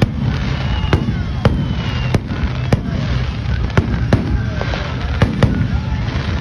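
Aerial fireworks shells bursting overhead in a rapid series of sharp bangs, about two a second, over a steady low rumble.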